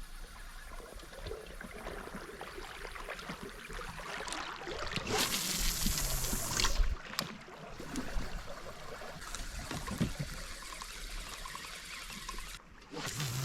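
River water trickling and lapping, with a louder rushing stretch about five seconds in that lasts a couple of seconds, and scattered small clicks.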